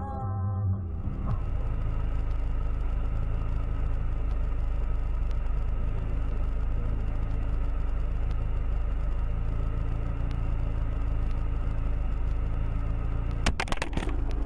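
Steady low rumble of a car driving on the road, with a quick cluster of sharp knocks near the end.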